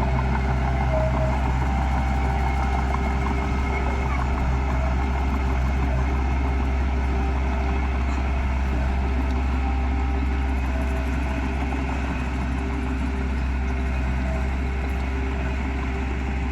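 Heavy diesel engine of earthmoving machinery running steadily with a constant low hum.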